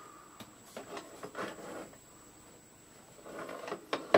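Faint handling noise of a small plastic video receiver and its coaxial antenna extension cables being moved about on a desk: scattered light clicks and taps, with a sharper click near the end.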